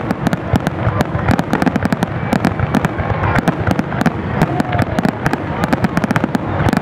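Aerial fireworks going off in a rapid, unbroken barrage: many sharp bangs a second, overlapping one another.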